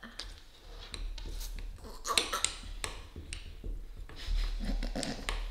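Metal spoon stirring watery, crunchy peanut butter in a small glass jar, with repeated light clicks and scrapes of the spoon against the glass.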